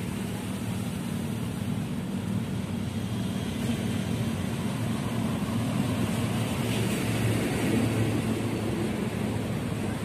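Steady, noisy road traffic: a continuous hum of passing vehicles with no single standout event.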